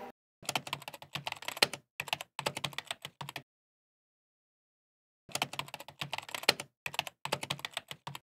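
Typing sound effect: rapid key clicks in two runs, pausing for about two seconds between them, as text is typed out letter by letter.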